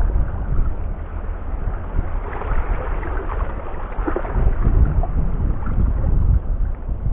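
Wind buffeting the microphone in an uneven low rumble, over lapping harbour water.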